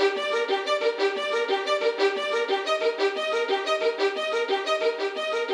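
Background music: a violin playing short, repeated notes in a steady, quick rhythm.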